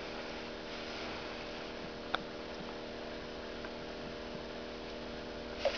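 Steady low hum over a faint hiss, with one short sharp click about two seconds in.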